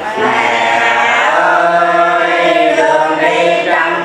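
Voices singing a Vietnamese Catholic hymn to the Virgin Mary together, in long, slowly moving held notes.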